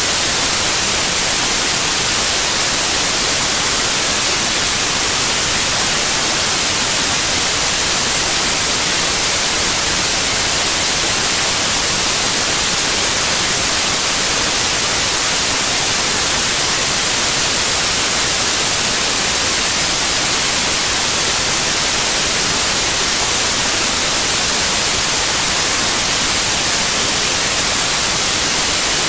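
Steady static hiss, brightest at the top and unchanging throughout, with no other sound heard through it.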